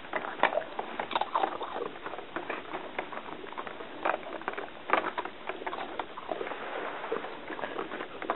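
A dog in a hard plastic cone nosing after plastic Easter eggs: irregular clicks, knocks and scraping of the cone and eggs against the carpet and furniture, with a few louder knocks.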